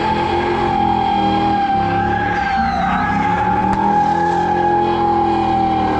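A car doing a burnout or donut: its tires squeal in one loud, unbroken screech while the engine is held at high revs. The revs dip briefly and recover about halfway through.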